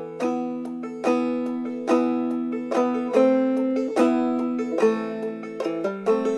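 Background music: a plucked-string tune, notes picked sharply and ringing out, with a strong note about every second and lighter ones between.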